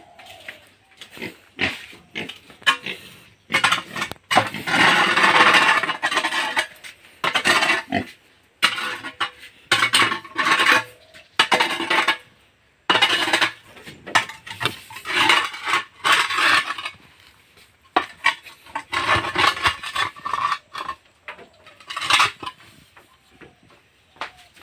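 A spade scraping and knocking on a pig-pen floor as muck is scooped up, in irregular strokes, with pigs grunting.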